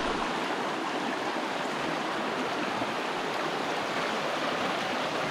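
Creek water rushing steadily, running high and fast with snowmelt.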